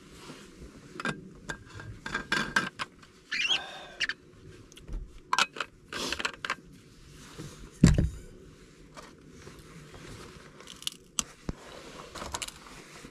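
Metal thermos flask being handled and its cap twisted on: a run of scrapes, clicks and knocks, with a short squeak a few seconds in and one heavy thump about eight seconds in.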